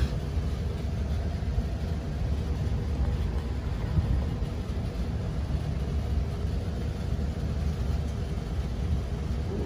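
Carrier air handler's blower running in cooling, a steady low-pitched noise of the fan and air moving through the unit.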